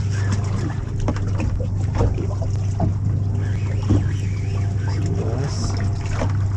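Steady low hum of a boat's idling engine, with a few light clicks and knocks over it as a fishing reel is wound against a hooked fish.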